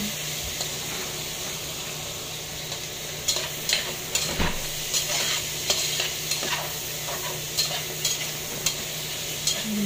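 Chicken and pork pieces sizzling in a pot with sautéed garlic, onion and ginger while a metal spatula stirs them, searing the meat. From about three seconds in, the spatula scrapes and clicks against the pot irregularly.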